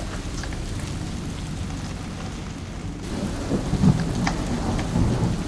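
Storm noise aboard a yacht at anchor in gale-force wind: steady rain and a deep rumble that builds about three seconds in, over the boat's engine running steadily to ease the load on the anchor.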